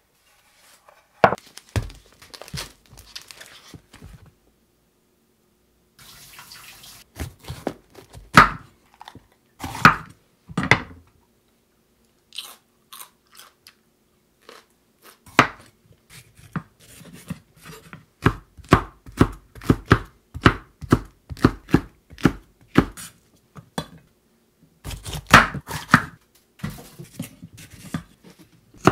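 Chinese cleaver chopping bell peppers on a camphor-wood cutting board: sharp knife strikes on the board. In the middle stretch the strokes come in an even run of about two a second, with a few short silent breaks between bursts of cutting.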